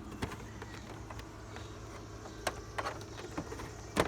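A few short, sharp clicks and knocks of equipment and cables being handled, the loudest near the end, over a steady low hum.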